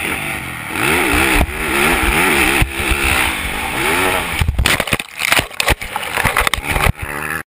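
Motocross bike engine revving up and down as it climbs. About four and a half seconds in it gives way to a run of hard knocks and clatter as the bike goes sideways off a jump and the rider's helmet hits the ground, knocking the helmet camera off. Then the sound cuts off suddenly.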